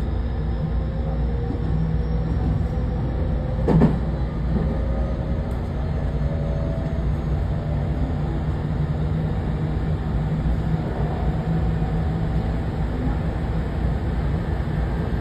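Running noise heard inside a JR West 207 series motor car with a Mitsubishi IGBT VVVF inverter. Thin motor and inverter tones rise slowly over the first several seconds as the train gathers speed, then fade into a steady rolling rumble. A single short knock sounds about four seconds in.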